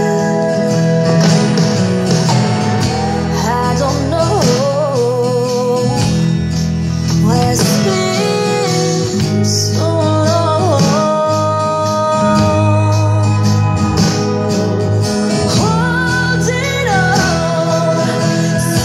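Song with a woman singing lead over a full band backing, an acoustic guitar strummed along with it.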